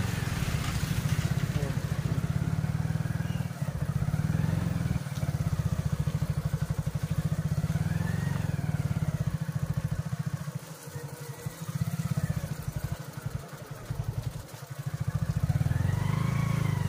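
Motorcycle engine running at low road speed over a rough, rutted mud road. Its level dips a few times in the second half.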